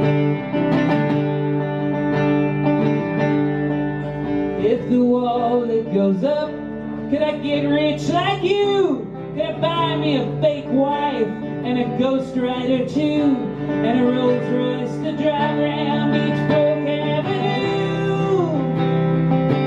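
Live solo acoustic guitar strummed steadily in chords, with a man's voice singing over it from about four seconds in, the pitch sliding and wavering.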